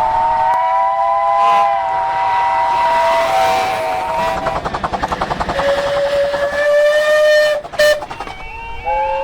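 Train whistles sounding in successive blasts. A chord of several steady tones is held for about four and a half seconds, then a single lower tone for about two seconds. A sharp click comes near the end, and another chord starts in the last second.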